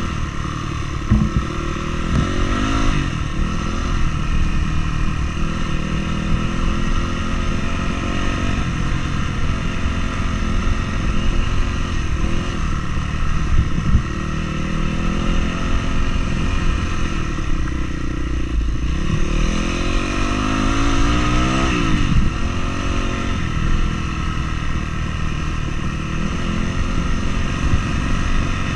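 A motor vehicle's engine pulling up a mountain track, its revs rising and falling again and again.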